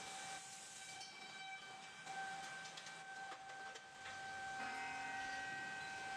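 Industrial woodworking machinery running faintly, with a steady whine over a hiss and a few light ticks; about two-thirds of the way through, another lower tone joins in and it gets a little louder.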